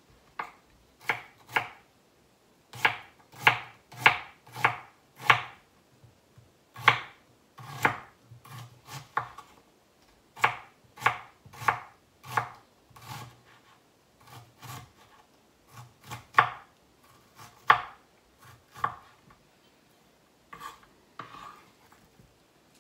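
Kitchen knife chopping onion on a wooden cutting board: sharp, irregular knocks of the blade through the onion onto the board, coming in quick runs with short pauses between.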